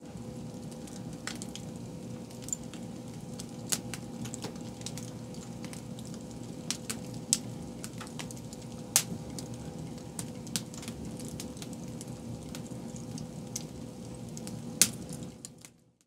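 Split logs burning in the open firebox of a wood-burning stove: a steady rush of flame with frequent sharp crackles and pops, one louder pop near the end. It fades out just before the end.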